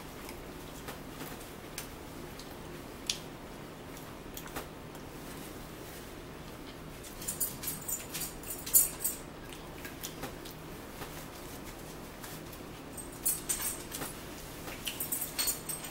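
Eating sounds at a breakfast table: scattered sharp clicks, with two busy clusters of clicking and clinking about seven seconds in and again near the end, over a steady low room hum.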